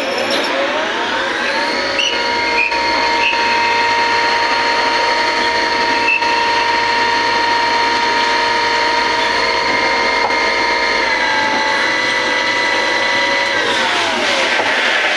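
CNC machine running: a motor whine climbs in pitch over the first two seconds, holds steady, shifts slightly about eleven seconds in, and falls in pitch near the end as the motor slows. A few faint clicks sound over it.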